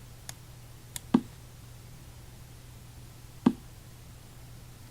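Short sharp clicks while pieces are moved in an online blitz chess game: two faint high clicks, then two louder knock-like clicks about a second in and again near 3.5 seconds, typical of computer mouse clicks and the chess site's piece-move sound. A low steady hum runs underneath.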